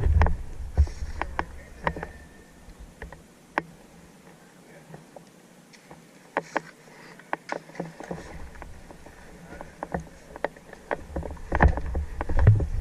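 Scattered, irregular sharp clicks and snaps over a low rumble of wind and handling noise on the microphone. The rumble fades in the middle and returns louder near the end.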